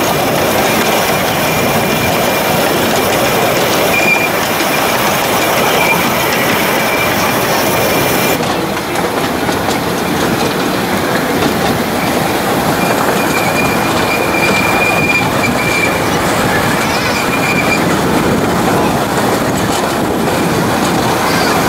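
Cars of a 15-inch gauge ride-on railway rolling along the track, a steady rumble and clatter of small steel wheels on rail. A thin high wheel squeal comes and goes, through the first eight seconds and again a few seconds past the middle.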